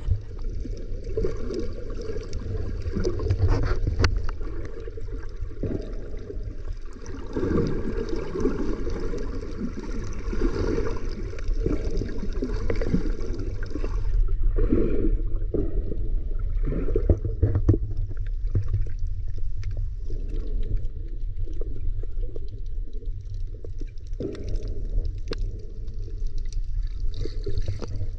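Muffled underwater sound from a submerged camera while snorkeling: a steady low rumble of water moving around the microphone, with gurgling and crackling on top.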